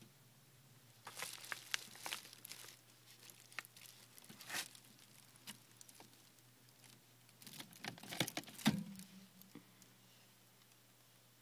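Ragdoll cat rummaging through clothes in a plastic storage bin and a wicker basket on wire closet shelves: scattered rustling, crinkling and scratching. It is busiest about a second in and again around eight seconds in, with single sharp rustles between.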